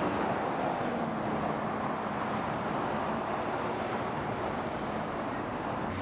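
Steady traffic rumble with a low engine hum; no clear bird call stands out above it.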